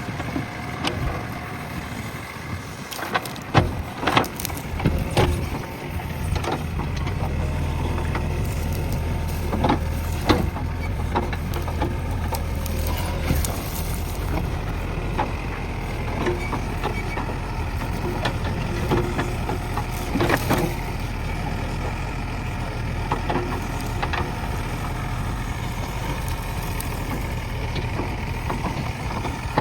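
JCB backhoe loader's diesel engine running under work, with scattered knocks and cracks from the bucket working soil and brush. Most of the knocks come in the first six seconds; from about six seconds in the engine drone grows louder and steadier.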